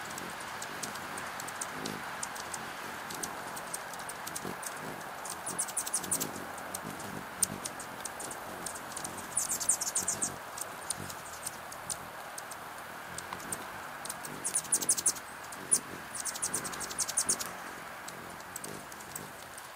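Steady rain, with drops pattering and tapping on a clear plastic rain shield over a hummingbird feeder. Four short bursts of rapid, very high-pitched hummingbird chatter break in over the rain.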